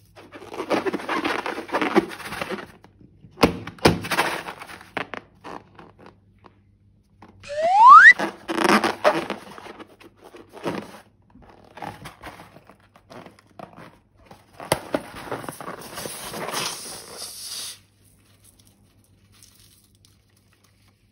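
Balloons and slime being handled: crinkly, crackly rustling with two sharp knocks about three and a half seconds in. A short rising squeak comes about eight seconds in, and a longer stretch of crunchy crackling follows later.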